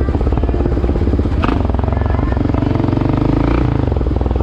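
Yamaha Raptor 700R ATV's single-cylinder four-stroke engine running under way, its exhaust pulsing steadily. A short sharp clatter comes about a second and a half in.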